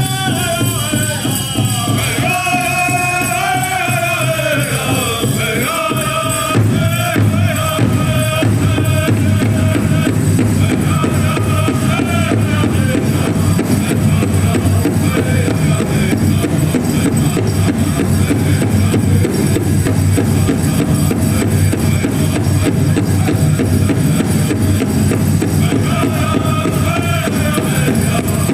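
Powwow drum group singing over a big drum beaten in a steady, fast unison rhythm. The high singing voices are strongest in the first several seconds and return near the end, with the drumming carrying on between.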